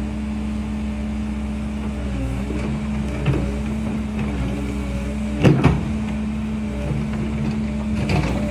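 Cat 308 mini excavator's diesel engine running steadily under hydraulic load, its note dipping briefly twice. Three short metallic clanks from the machine working, the loudest about halfway through.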